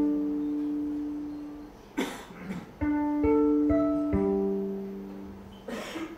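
Background music: plucked strings picking out a slow repeating figure of ringing notes, the figure starting over about every three seconds. Two brief swishes of hiss come between the phrases.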